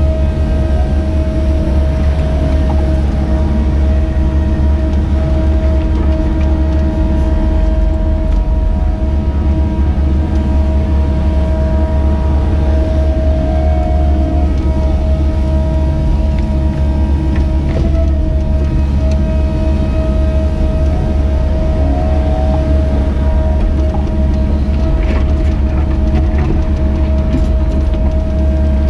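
Cat 307E2 mini excavator's diesel engine running steadily under working load, heard from inside the cab, with a constant whine over the low drone as the machine digs and swings a loaded bucket.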